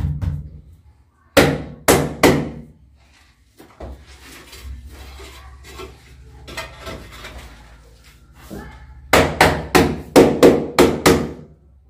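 Ceramic wall tiles being tapped firmly into fresh tile adhesive to bed them: three sharp knocks about a second in, quieter scraping and handling in the middle, then a quick run of about eight knocks near the end.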